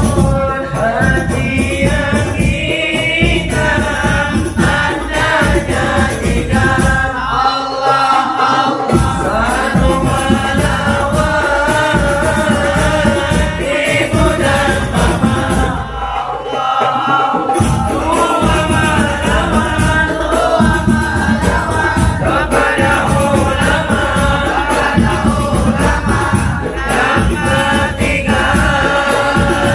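Group of voices chanting sholawat together over hadrah frame drums with jingles. The drums stop briefly twice, about seven and sixteen seconds in, while the singing goes on.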